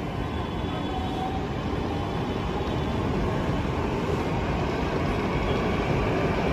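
BEML-built metro train running slowly along the platform: a steady low rumble and hiss that grows slightly louder.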